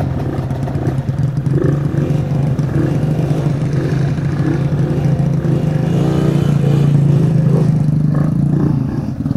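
Trail motorcycle engines running at low revs under load on a steep dirt climb, the revs rising and falling, with a rise about six seconds in.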